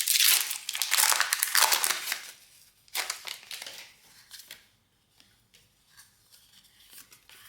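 Foil wrapper of a Pokémon card booster pack crinkling loudly as it is opened, for about two seconds, with one more short crackle about three seconds in; after that only faint rustling as the cards are handled.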